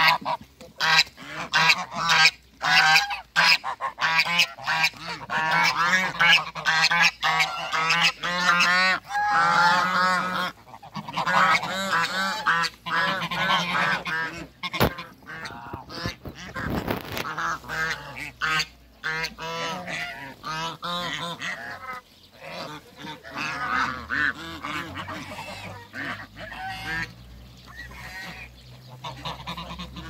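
A flock of domestic geese honking, many calls overlapping in a continuous chorus that is loudest in the first half and thins out toward the end.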